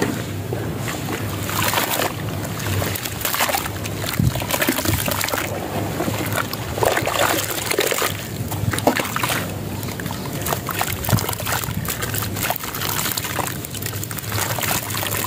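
Hands sloshing and squeezing wet sand in a basin of water: irregular splashing and trickling as clumps of sand are worked, crumbled and lifted out.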